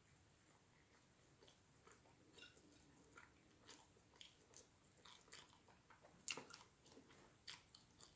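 Faint close-miked mouth sounds of a person chewing food: scattered soft wet smacks and clicks, with two louder ones about six and seven and a half seconds in.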